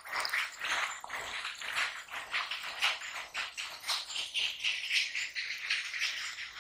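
Fish thrashing in shallow muddy water, a rapid, irregular run of wet splashes and slaps.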